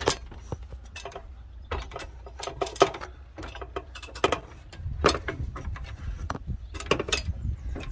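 Climbing an aluminium ladder: irregular metallic knocks and clinks as boots land on the rungs and gear rattles against the frame, roughly one every second or so.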